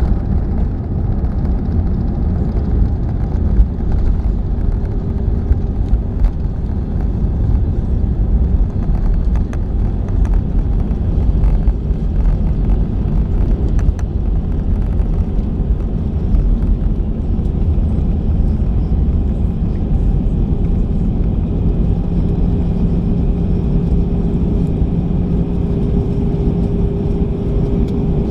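Airbus A320 cabin noise while taxiing: a loud, steady low rumble with a few short knocks early in, and a faint steady engine hum that comes up in the last third.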